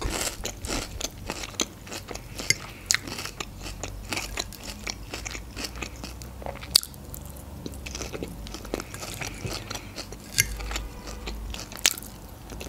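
Crunching and chewing of a Caesar salad made with napa cabbage and croutons, with a few louder sharp clicks.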